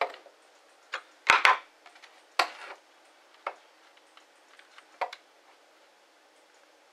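Plastic housing and parts of a Ridgid X2 cordless hammer drill clicking and knocking as they are handled and fitted back together: about six separate taps and clacks, the loudest about a second and a half in.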